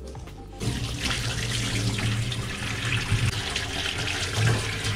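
Kitchen tap running into a stainless steel sink, the water splashing over hands being rinsed. The running water starts suddenly about half a second in.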